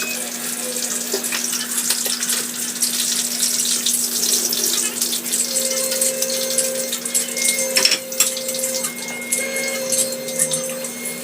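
Water running steadily from a kitchen tap, a rushing hiss with small crackles, over a faint steady hum.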